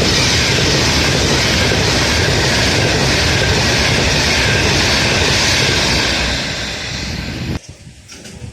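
Avanti West Coast express train passing close by, a loud steady rush of wheel and air noise. It eases off slightly near the end, then cuts off abruptly.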